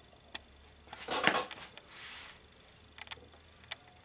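Light handling clatter of a white plastic side panel being positioned against a scale RC truck's chassis: a small tap, a louder knock and rattle about a second in, a brief scrape, then a few small clicks.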